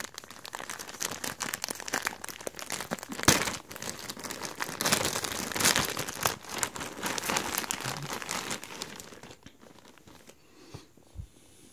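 Clear plastic sock packaging crinkling and tearing as it is pulled open and the socks are pulled out, with one sharp tear about three seconds in. The crackling dies down after about nine seconds, leaving a few faint ticks.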